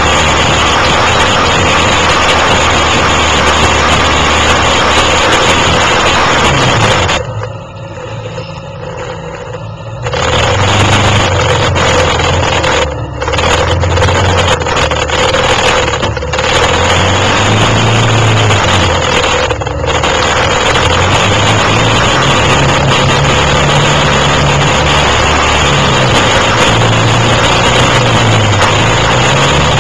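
Quad (ATV) engine running loud under changing throttle, its pitch rising and falling, over a heavy rushing noise. About seven seconds in it drops away for a few seconds, then picks up again, with a few short dips after.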